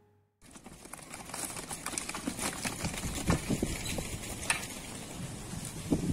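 Outdoor ambience cuts in: a steady rustling hiss scattered with irregular clicks and light knocks, the loudest knocks about three seconds in and near the end.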